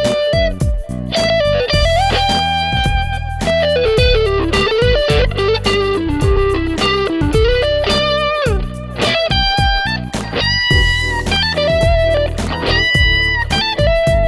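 PRS Studio electric guitar played through Kingsley Juggler V3 and Peasant pedals: a melodic lead line of held notes and string bends over a backing of bass and drums.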